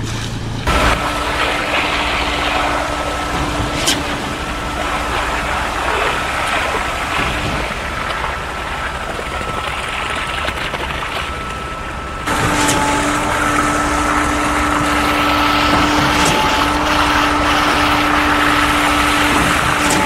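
Concrete pump truck running while concrete is pumped through the hose into a footing trench: a steady engine and pump noise with a constant hum. It turns abruptly louder about twelve seconds in.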